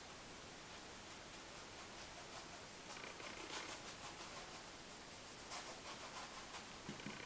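Faint scratching of a paintbrush's bristles dabbing and scrubbing paint onto the painting, in two short spells of quick strokes, over a steady hiss.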